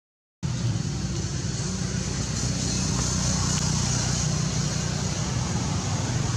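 Steady drone of motor traffic with an even high hiss, cutting in abruptly about half a second in after a moment of dead silence.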